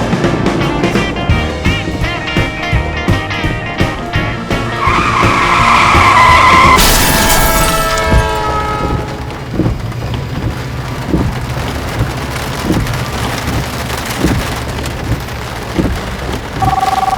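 Car tyres screeching for about two seconds over music, cut off by a sudden loud crash. A steady hiss with scattered thuds follows, and a short two-tone ring near the end.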